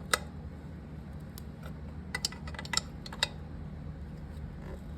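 Metal tools and dirt-bike parts clinking during hand work: a sharp click just after the start, then a quick cluster of clicks and clinks about two to three seconds in.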